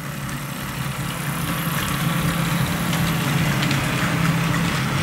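HO scale model train running past: a steady engine-like hum from the Rio Grande diesel locomotive, with faint clicks of the wheels over the track, growing a little louder over the first couple of seconds.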